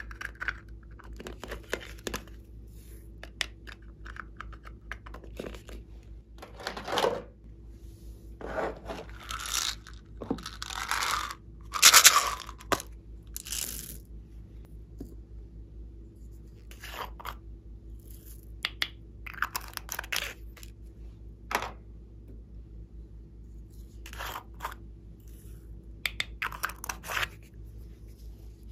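Hands handling plastic clay-piping containers and pressing clay into a tray of slime strewn with foam beads: irregular crinkling, crunching and scraping noises, loudest about halfway through.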